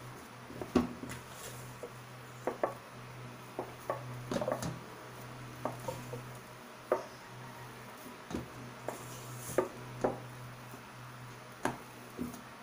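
A spatula scraping and knocking against a stainless steel mixing bowl while a crumbly flour-and-egg dough is stirred, in irregular clicks and knocks. A steady low hum runs underneath.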